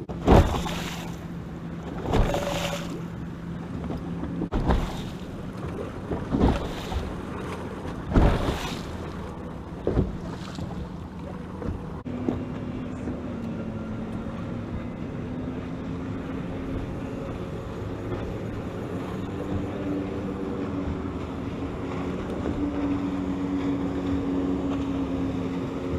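Water slapping against a bass boat's hull in short surges about every two seconds for the first ten seconds or so. Then a steady low hum, slightly wavering in pitch, from the boat's electric trolling motor holding position.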